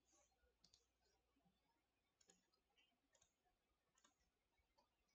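Near silence, with a few faint, short computer mouse clicks.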